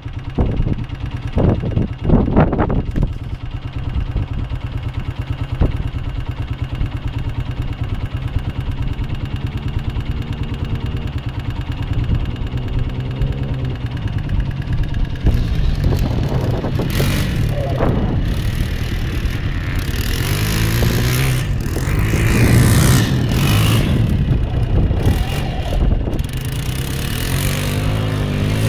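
Quad bike (ATV) engine running steadily under load while being ridden across desert sand. In the second half its note rises and falls with the throttle, and gusts of wind hit the microphone in the first few seconds.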